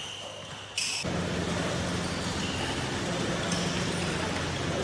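Steady low hum and hiss of a large indoor badminton hall, with one sharp hit about a second in.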